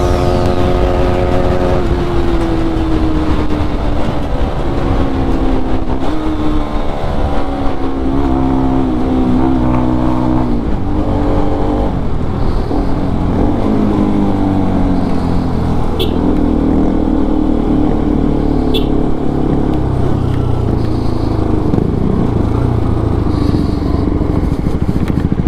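Motorcycle engine running under way, its pitch falling and climbing again several times as speed and revs change, over a steady rushing noise.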